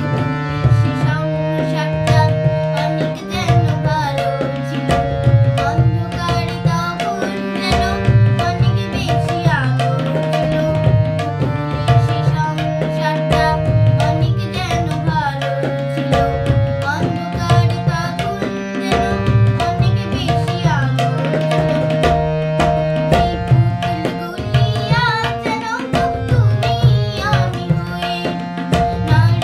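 Tabla playing a steady rhythm under the sustained reed tones of a harmonium, with a young girl singing a Bengali song in phrases over them.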